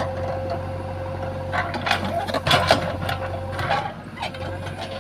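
JCB 3DX backhoe loader's diesel engine running steadily, with a cluster of knocks and scraping from the machine at work, loudest about two and a half seconds in.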